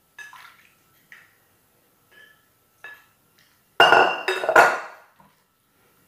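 A spatula taps and scrapes against a plastic mixing bowl a few times. About four seconds in comes a louder clatter of three quick knocks: the bowl and spatula being set down on the counter.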